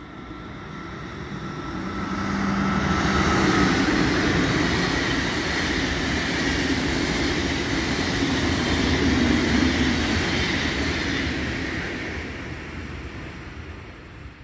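Locomotive-hauled SBB train of Einheitswagen passenger coaches passing through at speed without stopping. The rumble and clatter of wheels on rail swell over about three seconds, stay loud for about eight, then die away as the train recedes.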